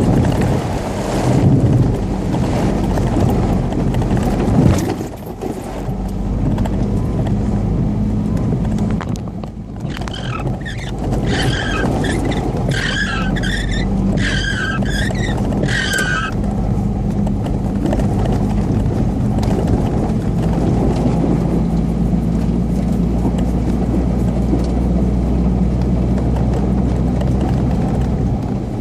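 UAZ Patriot off-road vehicle's engine running steadily under load, a continuous drone. Between about ten and sixteen seconds in, a wavering high-pitched squeal rises over it.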